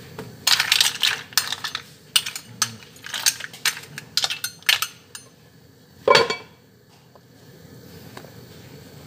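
Cooking utensil stirring and scraping in a pot of seafood, a quick run of clinks and scrapes for about five seconds, then one louder clang with a short ring about six seconds in.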